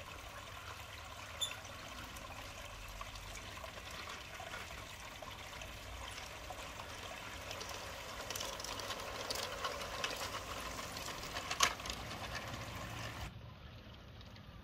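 Garden pond water feature trickling steadily, with the clicking rattle of an LGB garden-scale model train's wheels on the track as the wagons roll past from about eight to twelve seconds in, one sharp click near the end of it.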